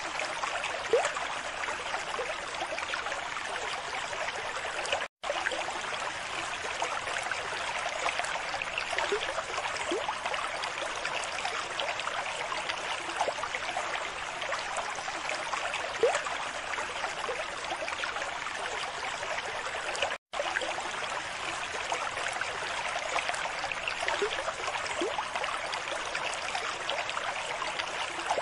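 Aquarium water bubbling and trickling from the tank's aeration and filter, a steady wash with small bubble plinks now and then. It cuts out for an instant twice.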